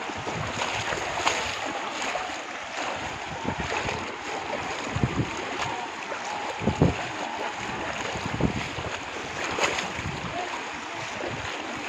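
Many people wading through shallow pond water, a steady wash of splashing and sloshing, with wind buffeting the microphone in a few low thumps.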